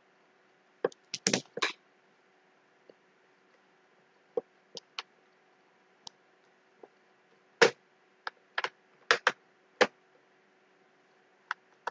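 Computer keyboard keys clicking in irregular single presses and quick clusters, with pauses of a second or more between them. A faint steady hum runs underneath.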